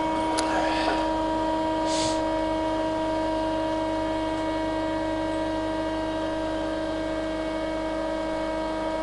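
Cosen double-column horizontal bandsaw running as its automatic cutting cycle starts: a steady machine hum with several constant tones, a click just under half a second in and a short hiss about two seconds in.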